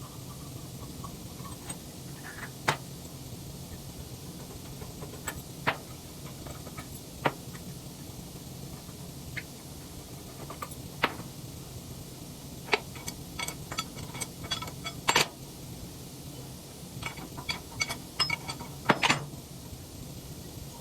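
Metal tools and steel parts clinking and knocking during work on a wood chipper's anvil: single sharp clanks every few seconds, then quicker clusters of clinks near the end, over a steady low hum.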